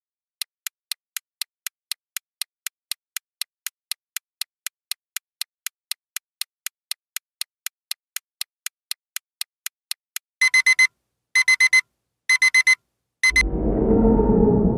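Quiz countdown timer sound effect: a clock ticking about four times a second for some ten seconds, then four short electronic alarm-clock beeps signalling that time is up. Right after the last beep a low rumbling sound begins.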